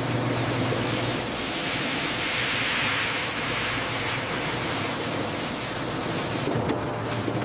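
High-pressure water sprays rinsing peeled sweet potatoes on a processing-line conveyor: a steady hiss over a low machine hum. The upper part of the hiss drops away near the end.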